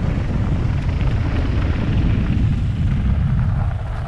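Low wind rumble buffeting a GoPro's microphone while a downhill mountain bike rides down a dirt trail, easing slightly near the end.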